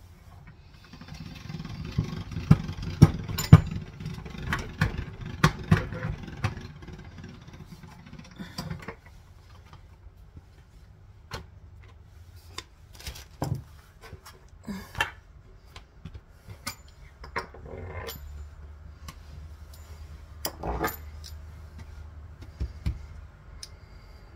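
Pasta machine rolling out sheets of chebakia dough. It gives a low hum with many clicks and knocks for the first several seconds, then scattered lighter clicks and taps, and runs again with a steady low hum near the end.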